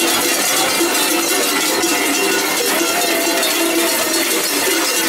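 Many hand-held cowbells ringing and jangling together, carried by a marching group of costumed carnival figures. The ringing is dense and continuous, with no single strokes standing out.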